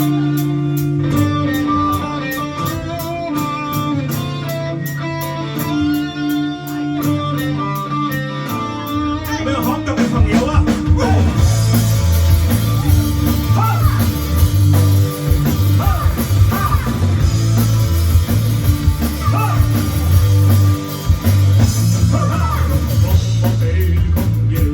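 Rock band playing live: a guitar intro over a steady ticking beat, then the bass and full drum kit come in at about nine seconds, with a singing voice from about twelve seconds on.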